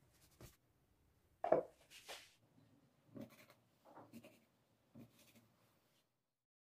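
Round donut cutters pressed and twisted through rolled dough on a granite counter: a series of soft taps and scrapes, plastic on dough and stone, the loudest about a second and a half in.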